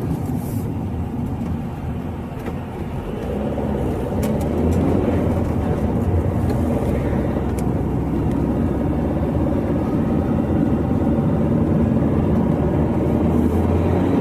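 Vehicle driving on a road, heard from inside the cab: a steady engine and road-noise rumble that grows louder about four seconds in and then holds.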